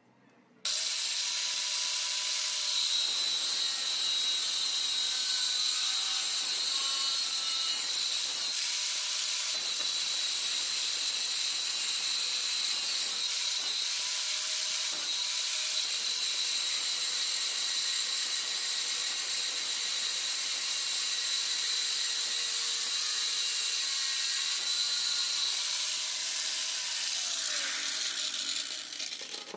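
Black & Decker KG15 angle grinder cutting through a steel flat bar with an abrasive cut-off disc: a steady, loud noisy rush with a high whine on top. It starts abruptly about a second in and fades away near the end.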